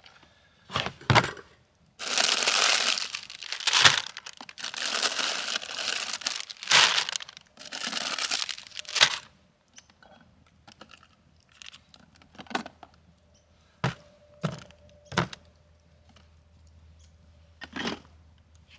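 Crinkly plastic food packaging rustled and torn open in several long crackling bursts, then scattered knocks and clicks as food items and containers are handled and set down.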